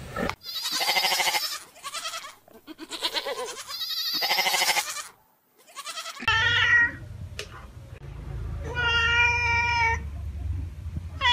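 Two long, quavering bleats from goats, then a domestic cat meowing twice, with a third meow starting near the end.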